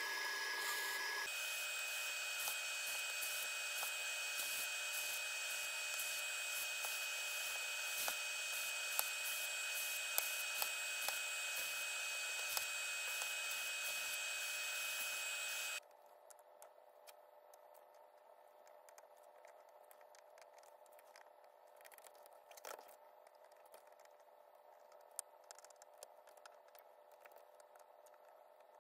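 Hot air rework gun blowing a steady hiss with a fan whine that steps higher about a second in, heating the plastic heat stakes that hold the laptop keyboard. It stops abruptly about halfway through, leaving faint room tone with a few light ticks of tools on the metal keyboard plate.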